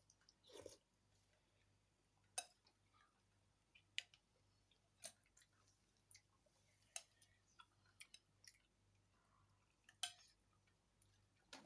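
Faint, scattered mouth clicks and smacks of a person chewing food, a sharp click every second or two.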